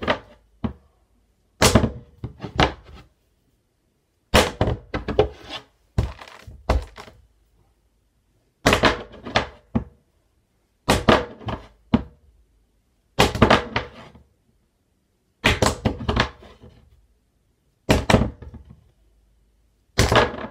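A small roll of black tape flipped again and again onto a Rubik's cube on a wooden tabletop: each try is a sharp thunk followed by a quick clatter of smaller bounces, about every two seconds, some nine times.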